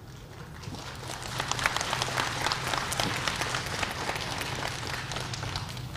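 Audience applauding, swelling up about a second in and carrying on steadily as many overlapping hand claps.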